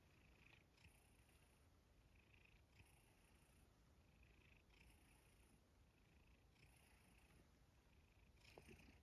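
Domestic cat purring softly while being stroked, in an even cycle of breaths about one a second. A short, slightly louder sound comes near the end.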